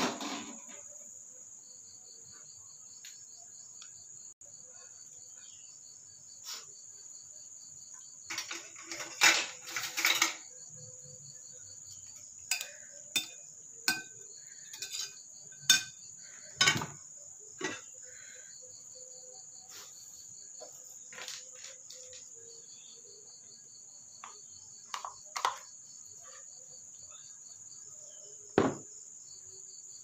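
Steady high-pitched drone of insects, with a faster pulsing chirp that comes and goes, under scattered clinks and knocks of a spoon and china plates on a table. The clatters come in clusters, the loudest about a third of the way in.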